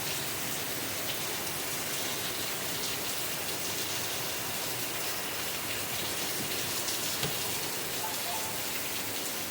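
Steady rain falling, a continuous hiss of drops with a few faint ticks and a small knock about seven seconds in.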